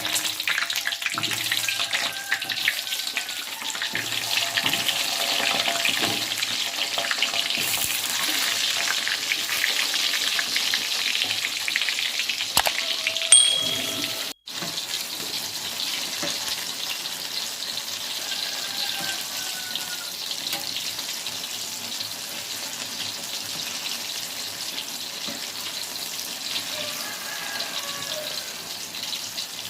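Food frying in hot oil in a pan: a dense, steady sizzle and crackle, with a short sharp click about thirteen seconds in.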